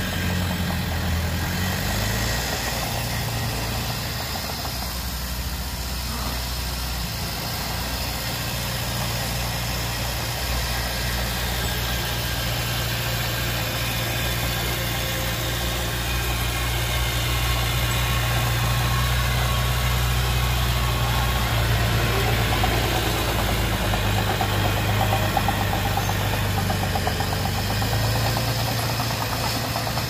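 Small Komatsu D20P crawler bulldozer's diesel engine running steadily while it pushes earth, getting louder from about halfway through.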